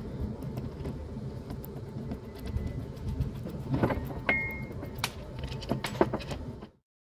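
Small metal parts clinking and tapping against each other as they are handled, over a steady low rumble; the sound cuts off abruptly near the end.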